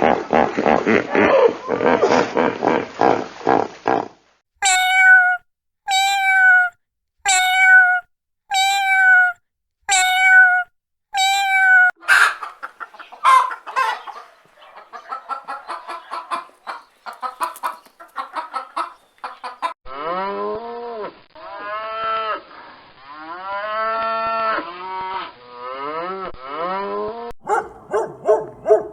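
Farm animal calls, one recording after another: a dense burst of calling, then six short identical calls about a second and a half apart, then rapid repeated pulses, then several long, low calls that rise and fall.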